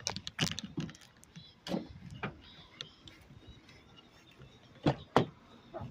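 A scattered series of short sharp clicks and knocks, irregularly spaced, with the loudest pair close together about five seconds in.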